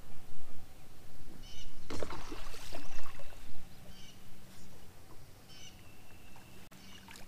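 A bird calling over and over, a short high chirping call every second or two. About two seconds in comes a loud burst of splashing lasting a second or so, a hooked bass thrashing at the surface as it is reeled in. A faint low hum runs underneath.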